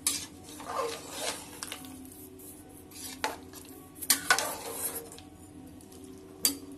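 Metal ladle stirring a thick meat and gourd curry in a pressure cooker, scraping along the pot and clinking against its side a few times, the loudest clinks about four seconds in.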